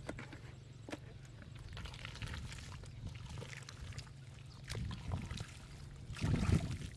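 Wet mud and water being stirred and splashed, with trickling and scattered small knocks, and a louder slosh about six seconds in.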